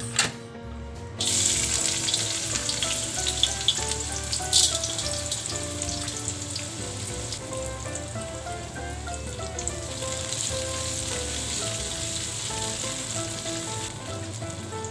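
Sliced shallots and garlic with whole spices sizzling in hot oil in a wok: a dense, steady sizzle with scattered crackles and pops. It starts suddenly about a second in.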